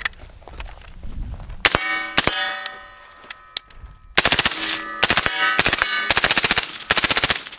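AR-15-style rifle firing on full auto: a short string of shots about two seconds in, then a long rapid string of shots at several a second from about halfway to near the end. A metallic ringing hangs between the shots.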